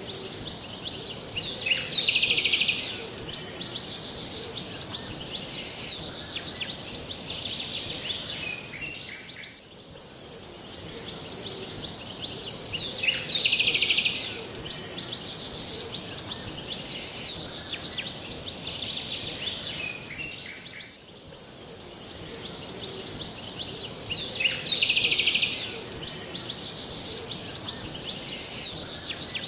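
Looped nature-ambience background track: a steady high outdoor hiss, with a brief burst of bird chirping about every eleven seconds, three times.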